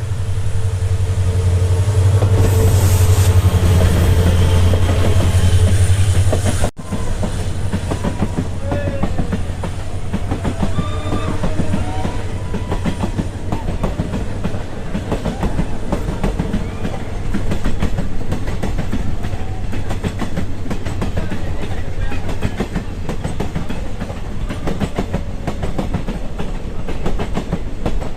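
Train passing close by on the ghat line. A loud low hum for the first several seconds, then a brief dropout about seven seconds in, then the steady clickety-clack of coaches rolling over the rail joints.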